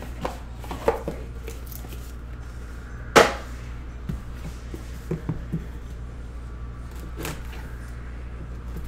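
Hands handling sports-card boxes and packs on a padded tabletop mat: scattered light taps and knocks, the loudest about three seconds in, over a low steady hum.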